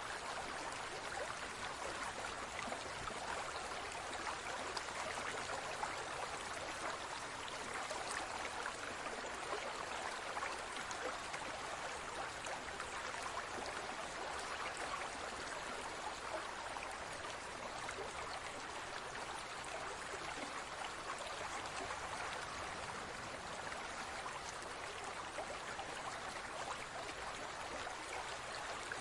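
Aquarium water trickling and bubbling steadily, a continuous splashy hiss with fine crackling of small bubbles and drips.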